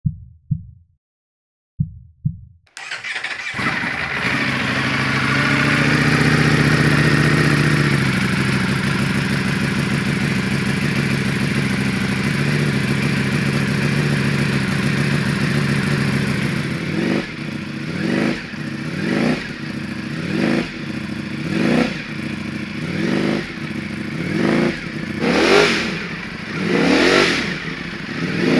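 A 2023 Ducati Panigale V4 R's V4 engine, through a new Akrapovic full titanium exhaust with the baffles in, is started for the first time. After a couple of short thumps it catches about three seconds in and runs at a steady fast idle. From past the halfway point it is blipped in repeated quick revs that climb higher near the end.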